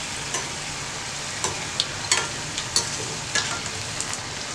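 Corn-flour nacho chips deep-frying in oil in a steel pan over a medium flame, a steady sizzle. Several light clicks and scrapes come through it as a perforated metal skimmer turns the chips.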